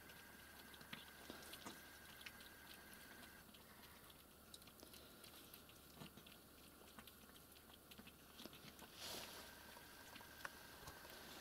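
Cats chewing chopped capelin from a shared bowl: very faint, scattered wet clicks and crunches of eating, with one brief louder noise about nine seconds in.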